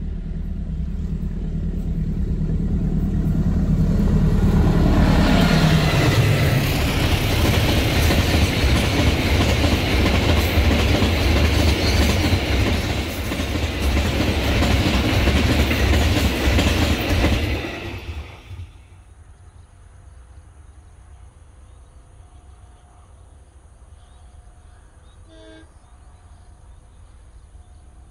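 Diesel locomotive approaching and passing, its engine drone dropping in pitch as it goes by. Then about twelve seconds of wheels clattering and rumbling as a long freight train of flatcar wagons rolls past, cutting off sharply as the last wagon clears. Faint insects and birds remain afterwards.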